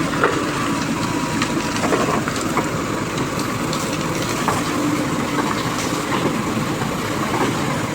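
Diesel engine of road-repair machinery running steadily, with scattered clicks and knocks over it.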